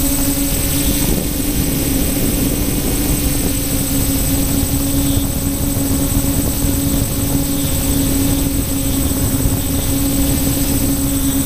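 Locust quadcopter's electric motors and propellers buzzing at a steady pitch in flight, heard from the onboard camera, with a low rumble of wind noise underneath.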